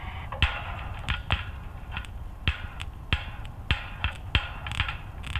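Recorded pantograph raise-and-lower sound of an ÖBB class 1041 electric locomotive, played by the H0 model's sound decoder through its small loudspeaker: a steady hiss broken by about a dozen sharp clanks and clicks, stopping suddenly near the end.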